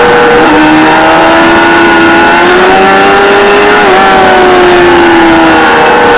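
Kawasaki ZXR400's inline-four engine at high revs on track, recorded onboard with heavy wind noise. Its pitch drops sharply about half a second in, as at a gear change, climbs steadily for a few seconds, then falls away near the end.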